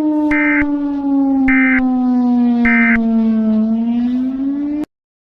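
A low siren-like alert tone that sags slowly in pitch and then rises again, with three short high beeps about a second apart laid over it; it cuts off suddenly near the end.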